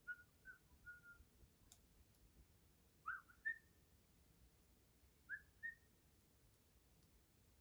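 Faint bird calls of short whistled notes: a quick run of notes at first, then two-note phrases twice, a couple of seconds apart. A few faint clicks are heard between them.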